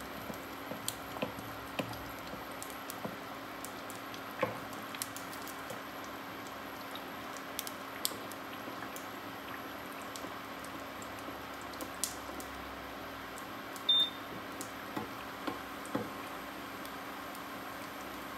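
Egg-and-beef martabak in spring-roll wrappers shallow-frying in oil in a nonstick pan: a steady sizzle with scattered crackles and pops as hot oil is spooned over the top. A short, high beep about fourteen seconds in is the loudest sound.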